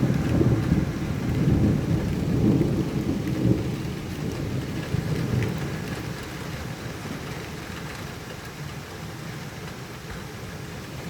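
A long roll of thunder, loudest in the first few seconds and then slowly dying away, over steady rain.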